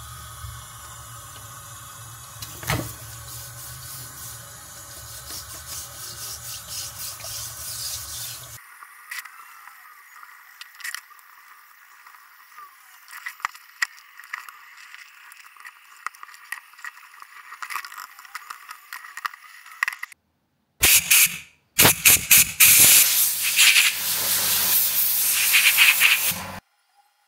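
Water spraying and splashing as a piece is washed off, a steady hiss that changes abruptly several times and becomes much louder in bursts near the end.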